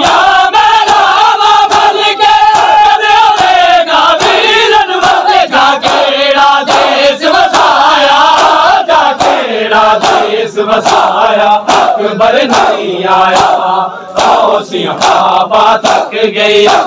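Large crowd of men chanting a noha in unison, with sharp slaps of hands on bare chests (matam) in a steady rhythm through the singing.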